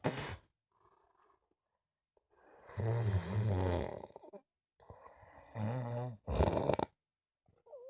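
A sleeper snoring loudly: two long snores of about two seconds each, separated by quiet pauses, the second ending in a sharper, louder burst.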